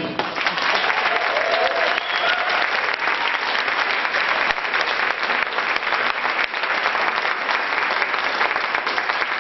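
Theatre audience applauding at the end of a choral number, a dense steady clapping with a brief whoop about a second and a half in.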